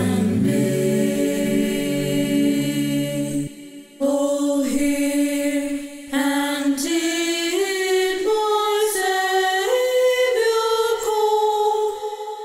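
Small four-part a cappella choir singing. A full chord with the low voices is held for about three and a half seconds and then breaks off. After a short pause the higher voices sing on alone, in a melody that climbs step by step.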